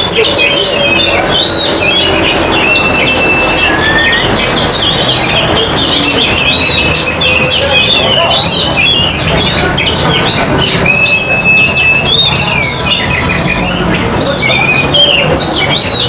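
Many caged songbirds, chiefly oriental magpie-robins (kacer), singing at once in a dense, overlapping tangle of whistles, trills and chirps, over a steady low murmur.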